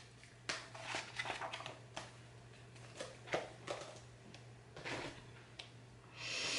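Faint rustling and light clicks and taps of paper and packaging being handled, scattered irregularly, with a breath near the end.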